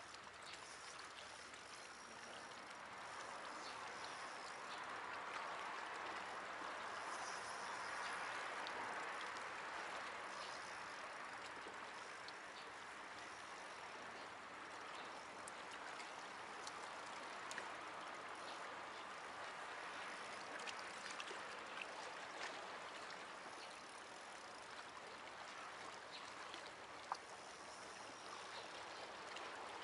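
Small waves lapping and washing against shoreline rocks: a soft, steady wash of water that grows a little louder a few seconds in and then eases, with faint scattered drips and ticks.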